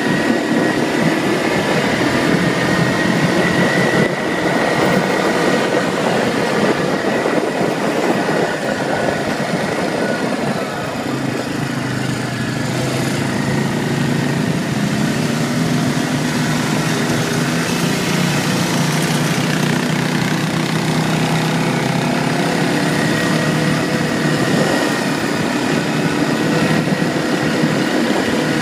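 ATV engines running steadily under way on a dirt trail, with a continuous rush of noise over the engine note.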